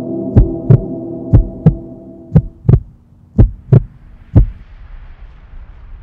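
Heartbeat sound effect: low thumps in pairs about once a second, over a steady droning hum that fades out about halfway through. The last beat comes about a second and a half before the end.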